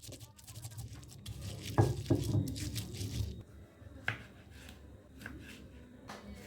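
Handling noises: scattered clicks and knocks with some rustling, the loudest knocks coming about two seconds in.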